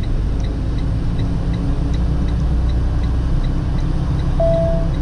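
Semi truck's diesel engine running as it drives slowly, with the turn signal ticking about two and a half times a second. A short high tone sounds near the end.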